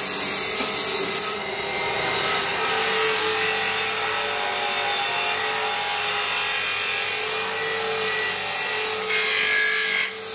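Bench grinder's abrasive wheel grinding a steel kukri blade: a continuous scraping hiss of metal on the wheel over a steady hum, louder for a moment near the end.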